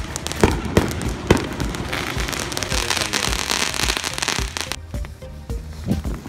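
Consumer fireworks going off: several sharp bangs in the first second and a half, then a steady crackling hiss of sparks that cuts off suddenly about five seconds in, with one more bang near the end. A steady low music beat runs underneath.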